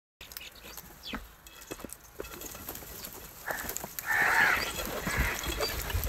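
House crows cawing harshly a few times in the second half, the loudest call about four seconds in, after a stretch of scattered light taps and clicks as the flock feeds.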